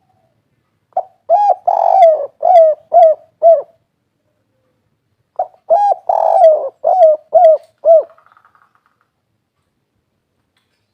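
Spotted dove (derkuku) cooing: two phrases, each a short opening coo and a longer coo followed by three short 'kuk' notes, the three-note ending of the 'kuk 3' song type.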